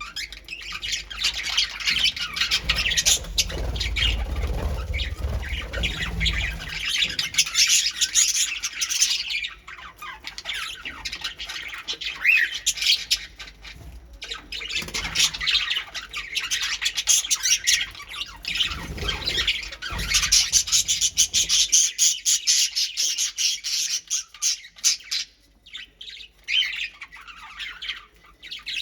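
A flock of pet birds chattering and squawking constantly with many overlapping calls, thinning out after about twenty seconds. A low rumble comes in a few seconds in and again just before twenty seconds in.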